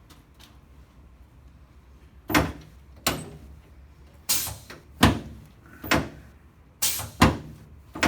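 Chiropractic drop table's sections dropping under the chiropractor's thrusts: about eight sharp clacks, starting about two seconds in and coming roughly one a second.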